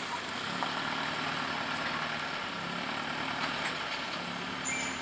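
Vehicle engines idling in a jammed traffic queue: a steady low engine hum under an even hiss, with a brief high squeak near the end.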